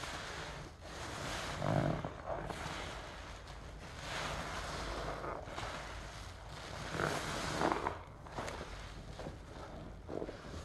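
Large sponge full of soapy cleaning solution being squeezed and kneaded in gloved hands: wet squelching and crackling suds, swelling louder with each of several squeezes.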